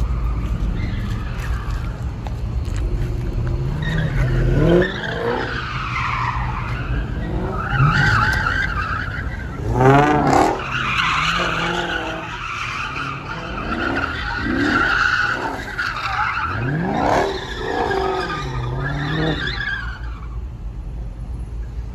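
A car's engine revving hard and dropping back again and again, with tires skidding across the pavement: a car doing donuts. The loudest burst of revving comes about halfway through.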